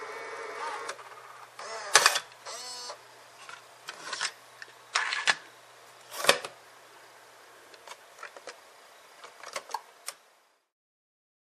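Sony EV-C8u Video8 cassette recorder's transport mechanism running and stopping about a second in, then a series of sharp plastic clicks and clacks as its cassette compartment lid is handled and pressed shut, the loudest about six seconds in. A few faint ticks follow before the sound cuts off.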